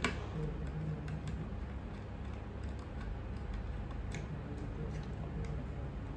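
Scattered faint clicks and ticks of a small screwdriver working a terminal screw on a plastic Wi-Fi switch module, with wires being handled, as the neutral wire is fastened into its terminal. A low steady background hum runs underneath.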